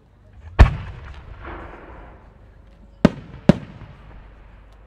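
A large aerial firework shell, a No. 10 core-type warimono, is fired: one very loud, deep boom about half a second in, trailing off into a rumble. About two and a half seconds later come two sharp bangs close together.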